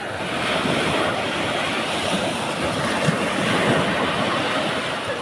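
Small waves breaking and washing up a sandy beach: a steady rushing noise that swells about half a second in and eases near the end.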